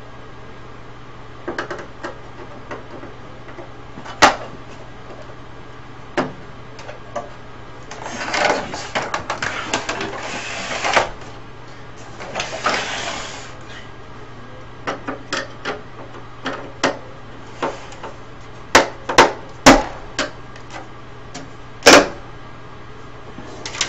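Clicks, knocks and rattling of plastic and metal parts as a CRT television is taken apart by hand: scattered sharp knocks, a stretch of scraping and rustling in the middle, and several loud sharp knocks near the end, over a steady low hum.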